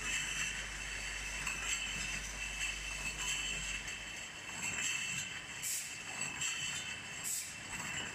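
Automatic rotary beer-bottling microblock filling carbonated drink into amber glass bottles: steady machine running with a constant high whine, glass bottles clinking, and two short hisses in the second half.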